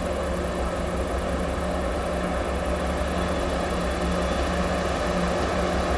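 Distant diesel locomotive engine running as a heavy freight train approaches: a steady low drone that grows slowly louder.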